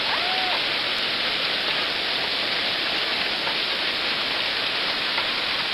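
Hail mixed with rain falling hard on pavement and a parked vehicle, a dense, steady hiss.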